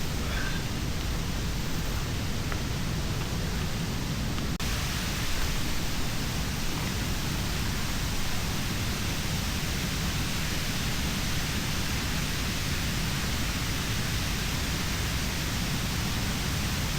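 River water rushing steadily, with a brief dropout about four and a half seconds in.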